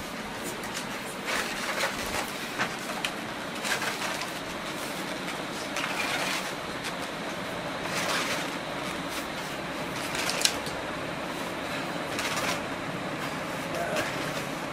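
Steady room background noise, with scattered light knocks and clatter of white foam takeaway boxes being handled in a blue plastic crate, and faint voices.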